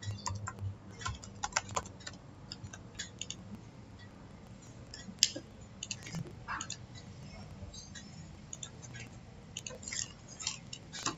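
Quick runs of computer keyboard key clicks in the first few seconds, then scattered single mouse clicks, with another cluster of clicks near the end.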